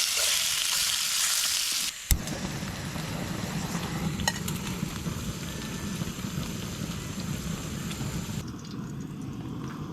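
Food frying in a pan, sizzling loudly, then an abrupt change about two seconds in to a quieter sizzle with a low rumble underneath.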